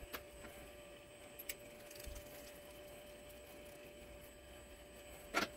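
Faint clicks of small metal parts being handled, a Bosch diesel injector's nozzle and retaining nut being fitted, with a louder single knock near the end over a faint steady hum.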